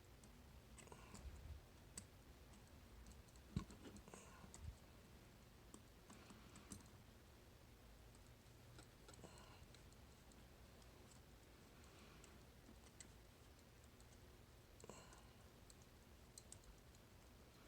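Faint, irregular clicks and light metal taps from a nine-pin dimple lock being handled with tools. The loudest is a sharp tap about three and a half seconds in.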